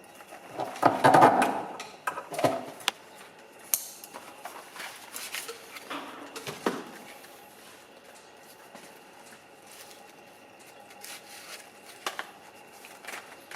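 Scattered knocks, clicks and clatter of objects being handled, loudest in a burst about a second in.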